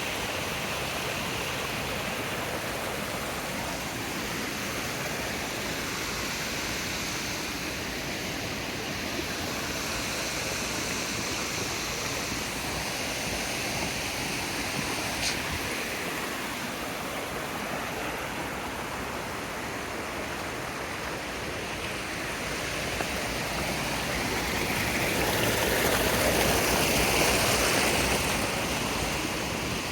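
Water rushing steadily in a stream or small cascade, swelling louder for a few seconds near the end.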